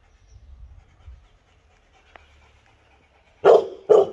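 A dog barks twice in quick succession near the end, two short loud barks about half a second apart.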